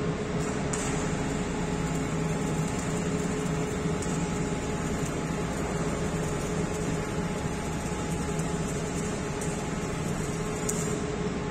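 Steady industrial din inside a steel ship's hold: a constant low hum and a higher steady tone under a broad hiss, from machinery running while arc welding goes on.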